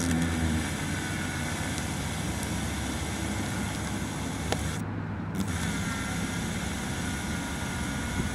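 Small hand drill with a fine bit running steadily as it bores into the windshield glass at the tip of a crack under light pressure, the first stop-drill hole in a crack repair.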